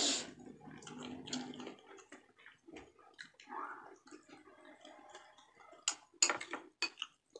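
Close-up eating sounds: wet mouth smacks and small clicks as fried fish and mussels are picked apart and eaten, with a few sharper clicks near the end as a metal spoon goes into a ceramic soup bowl.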